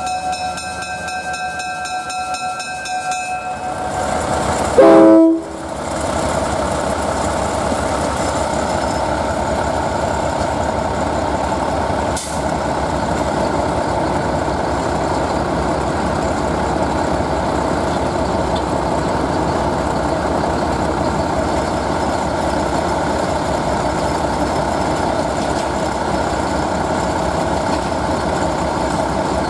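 Diesel locomotive running with a steady rumble. About five seconds in, a short, very loud horn blast, and for the first few seconds steady high tones.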